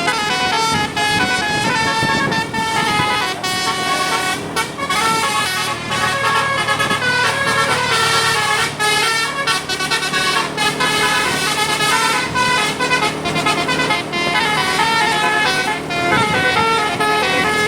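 Tour bus 'telolet basuri' musical air horns playing a fast melody: several horn notes sound together and change pitch many times a second, without a break.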